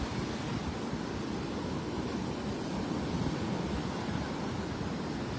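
Steady surf washing onto the beach, with wind rumbling on the microphone.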